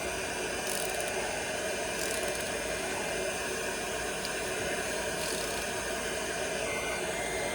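Steady fan-like hiss with a faint, high, steady whine, typical of the cooling fan of a 1300-watt handheld induction heater left running.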